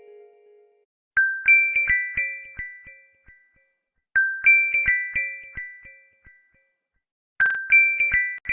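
Honor Magic 7 Lite phone ringtone: a short run of quick, bright chime-like notes that repeats three times, about three seconds apart.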